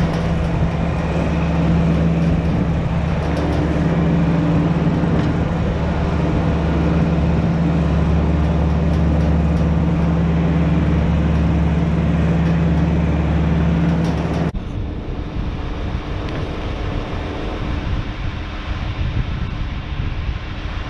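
John Deere 4620's six-cylinder diesel engine running steadily under way, heard from just in front of the tractor. About two-thirds of the way through, the engine's steady tone stops abruptly, leaving a lower, rough rumble.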